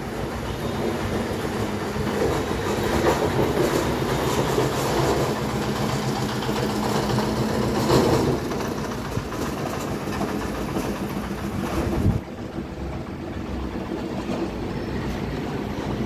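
Steady mechanical rumble with a low hum, like a heavy vehicle passing, growing louder toward the middle and dropping off sharply about twelve seconds in.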